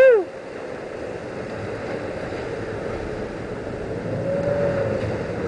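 Sportfishing boat under way: steady engine hum with wind and rushing water. It opens on the tail of a loud falling call, and a soft rising-then-falling tone comes about four seconds in.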